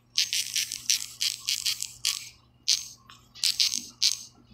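Typing on a smartphone's on-screen keyboard: a quick run of sharp taps and clicks, then after a short pause one more tap and a few more in quick succession.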